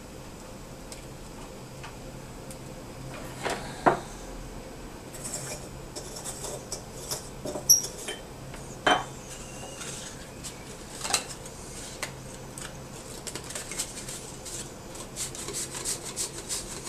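Clicks, clinks and scraping of glass and metal being handled as an incandescent bulb is unscrewed and a 200-watt bulb screwed into a light-bulb current limiter for a variac. A quicker run of light clicks and rattles comes near the end, over a faint steady low hum.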